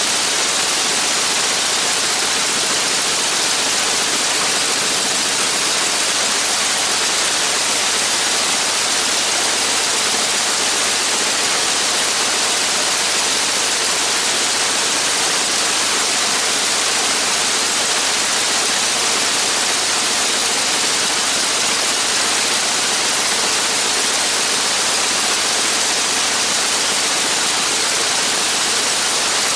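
Aircraft radial engine running on the ground with its propeller turning, heard as a steady, even rushing noise that is mostly hiss, with no distinct engine beat.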